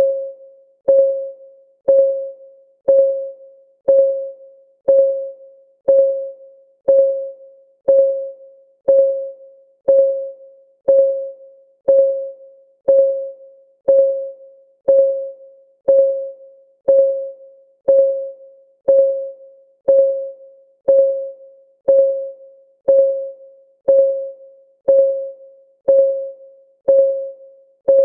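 Clock-ticking sound effect of a countdown timer: one short tick each second, each with a brief pitched ring that fades before the next, in a steady unbroken rhythm.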